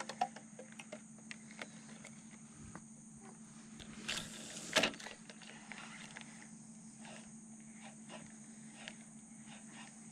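Faint steady high-pitched chirring of insects in the mangroves, with scattered light clicks of a fishing rod and reel being worked. A brief rush of noise about four seconds in is the loudest sound.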